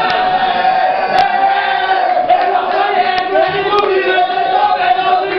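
A group of footballers chanting a song together in unison, loud held notes from many men's voices, with a few sharp hits through it.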